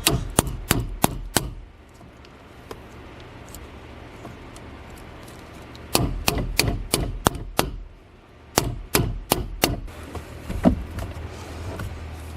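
Hammer striking an Allen key used as a makeshift punch, driving the small locking pin out of the reverse cable linkage on a Subaru STI six-speed shifter. Three runs of quick metal blows, about three a second, with a single strike near the end.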